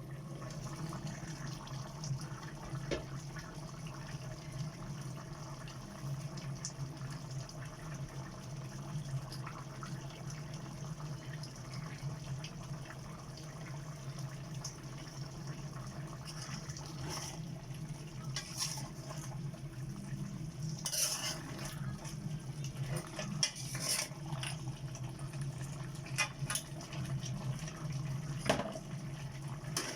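Metal cooking utensils clinking and scraping against a pot, in scattered strokes that come more often in the second half, over a steady low hum.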